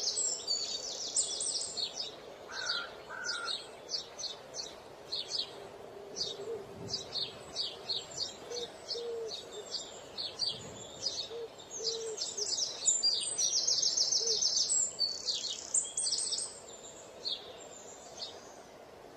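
Small birds chirping and twittering continuously in many short high notes, with fast rattling trills near the start and again about two-thirds of the way through.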